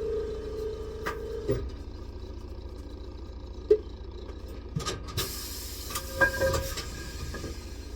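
A machine's steady whine cuts off about a second and a half in, followed by a few knocks and a sharp click, then a burst of compressed air hissing for about a second and a half during tyre inflation with the cheater.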